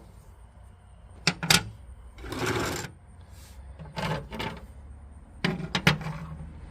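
A set of metal wrenches being handled, clinking and knocking as they are picked up and set down, with a short rasping sound a little over two seconds in.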